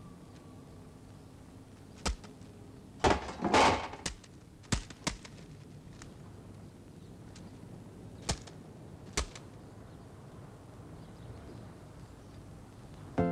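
Scattered sharp clicks and knocks of hands working on an old red open car, with a louder burst of clatter and scraping about three to four seconds in; the clicks come singly and a few seconds apart.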